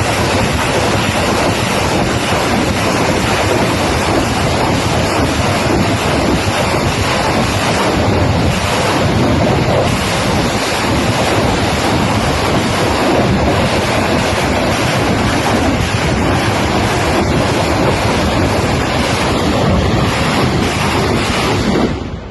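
Salvo from a BM-30 Smerch ("Tornado") multiple rocket launcher: the rockets' launch noise blends into one steady, loud rushing sound that drops away near the end.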